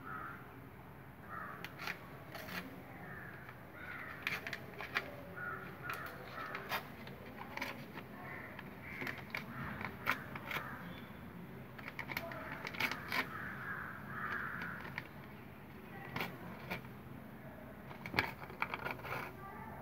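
Newspaper being torn by hand into small pieces, with short irregular rips and paper rustling.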